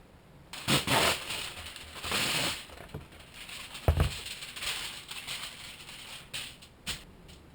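Aluminium foil being crinkled and folded by hand in irregular bursts, with one dull knock about four seconds in.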